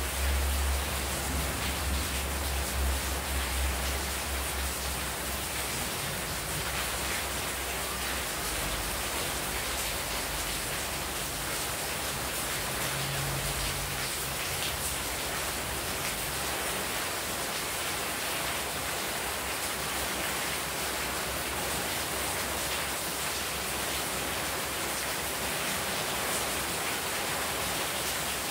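Heavy rain falling steadily, with water pouring off a roof edge and splashing onto a courtyard floor and potted plants. A deep low rumble sits under the rain for the first several seconds and fades out.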